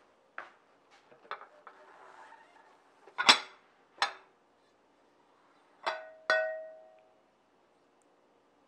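Ceramic pot set down on a woven straw mat with a sharp knock, a few light clicks before it, then its ceramic lid clinked twice as it is lifted off, the second clink ringing on briefly.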